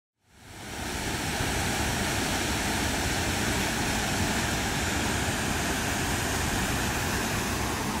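Waterfall pouring over rock ledges into a churning pool: a steady rushing of water that fades up from silence within the first second.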